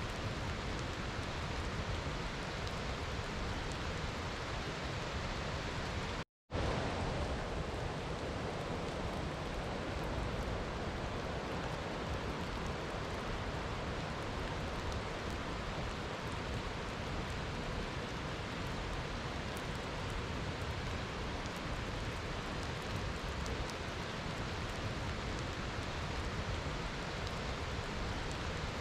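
Steady rain, an even hiss with a low rumble underneath. About six seconds in it cuts to complete silence for a fraction of a second, like an edit join, then resumes unchanged.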